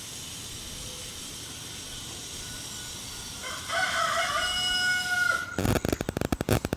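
A rooster crowing once, about halfway through, over a steady hiss. Near the end comes a burst of rapid crackling from the microphone.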